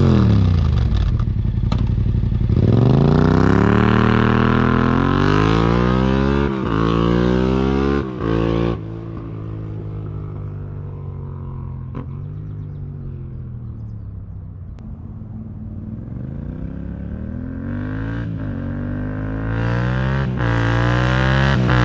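Yamaha MT-07's parallel-twin engine through an Akrapovič Racing Line exhaust with the baffle in, climbing in pitch under throttle, dropping back sharply about nine seconds in, running lower for a while, then climbing again and falling off near the end.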